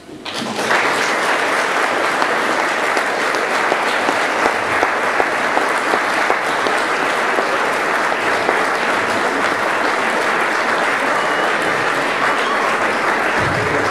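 Audience applauding, breaking out about half a second in and keeping up steadily.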